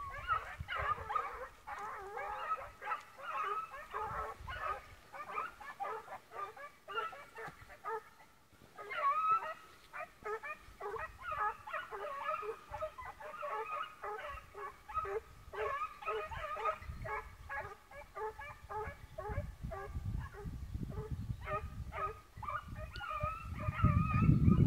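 Swiss hounds (Schweizer Laufhunde) baying in a steady run of short calls, about two to three a second, with a brief pause partway through. This is the voice scent hounds give on a trail. A low rumble builds near the end.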